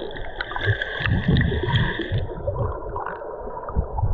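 Water sloshing and gurgling close to the microphone in irregular low splashes, strongest about a second in. A steady high tone sounds over it for the first two seconds.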